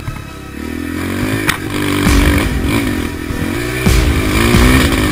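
A 250cc racing quad's engine heard from an onboard camera, revving up and down as the throttle is closed and opened. The engine drops back briefly at the start and climbs again twice, with wind rumble and clattering knocks from the rough track.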